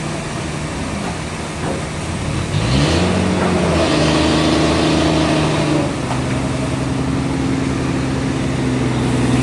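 Sawmill machinery running with a steady mechanical hum. About two and a half seconds in, a motor spins up with a rising whine and runs on at a steady pitch, then drops to a lower steady hum about six seconds in.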